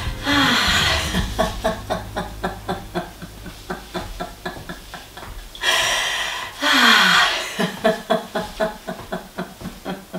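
Free, unforced laughter yoga laughter: two long bouts, each opening with a loud breathy outburst and running on into rapid ha-ha pulses, about four or five a second, that fade away.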